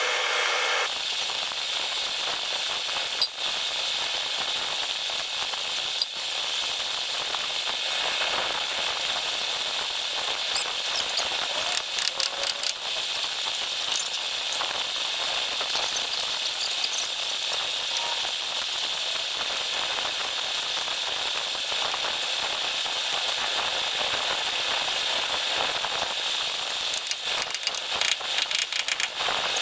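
Steady hiss with scattered sharp clicks and taps, a cluster of them near the end.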